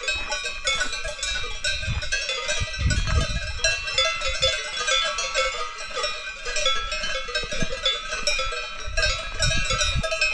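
Many cowbells on grazing cows clanking and ringing irregularly and without pause, several bells of different pitches overlapping.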